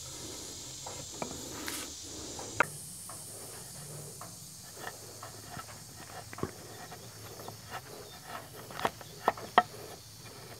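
Hand chisel paring the end of a timber rafter's seat cut: irregular short scraping clicks and snaps as the blade shaves and rocks through the wood, cutting a slight undercut. A steady high hiss sits under the chisel strokes, and the sharpest snaps come about two and a half seconds in and in a quick cluster near the end.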